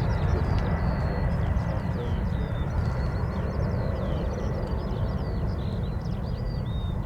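Steady low rumble of a jet aircraft at the airport, slowly easing off, with small birds chirping and warbling over it.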